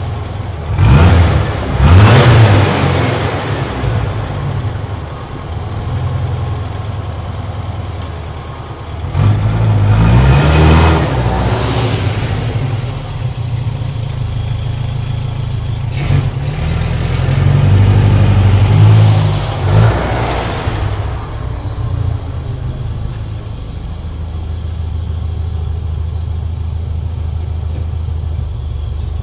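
Trike engine idling and being revved while standing: two quick blips near the start, a longer rev about ten seconds in and another around eighteen to twenty seconds, each dropping back to a steady idle.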